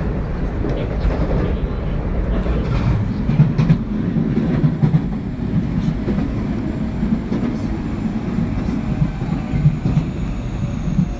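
JR West 223 series 2500 subseries electric train with Hitachi IGBT inverter drive, heard from inside the car while running: a steady rumble of rolling with scattered clicks, and a faint high whine slowly falling in pitch near the end.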